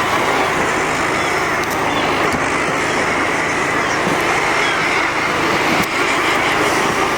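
Dense, continuous din of a large Brünnich's guillemot (thick-billed murre) colony calling en masse, over a steady low hum.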